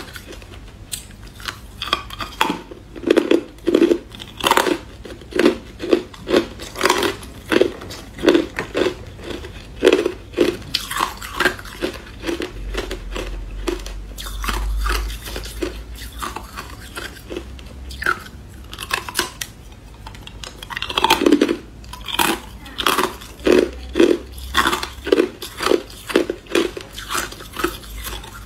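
Hard clear ice chunks being bitten and chewed: a close, quick run of sharp crunches and cracks. It eases off for a few seconds about halfway, then picks up again.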